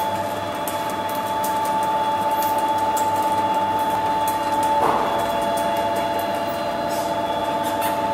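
Drive machine of a 1974 kitchen elevator running with a steady whining hum, with scattered light clicks and a brief louder rasp about five seconds in.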